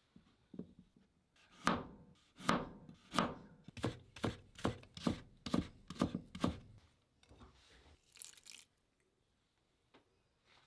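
A Global chef's knife cutting a carrot into thin julienne strips on a cutting board: about a dozen sharp chops, roughly two a second, blade knocking on the board. The chopping stops after about six and a half seconds and a brief soft rustle follows.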